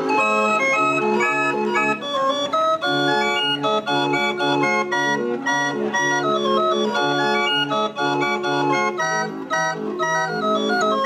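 Hand-cranked street organ (barrel organ) playing a tune, its pipes sounding a melody over a bass that alternates between two notes about twice a second.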